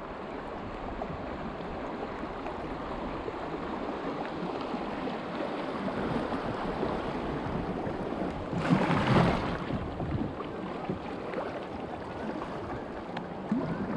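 Rushing river current around a kayak running a riffle, with paddle strokes splashing in the water; a louder splash comes about nine seconds in.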